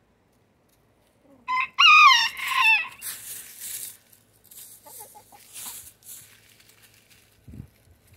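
Rooster crowing once: a short note, then a loud wavering call of about a second, followed by softer rustling and clucking from the chickens.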